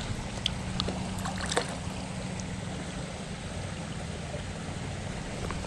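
Creek water running steadily, with a few short clicks in the first two seconds.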